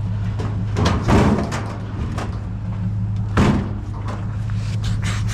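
Vehicle engine idling steadily, with a few sharp knocks and bangs over it, the loudest about a second in and about three and a half seconds in.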